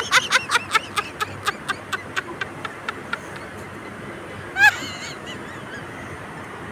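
A bird calling: a rapid run of short, sharp honking calls, about five a second, fading and slowing over the first three seconds, then a single call about two-thirds of the way through.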